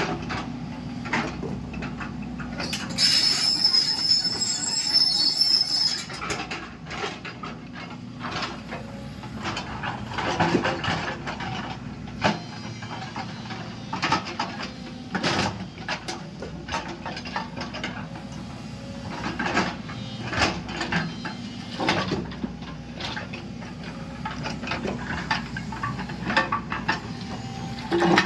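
JCB 220LX tracked excavator's diesel engine running steadily under work, with frequent sharp metal and stone knocks and clanks, and a high metallic squeal for about three seconds near the start.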